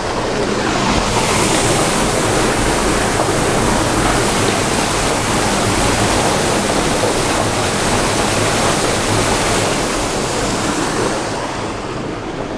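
Water rushing steadily through an opened lake weir gate into its outflow structure, draining the lake down; the rush fades slightly near the end.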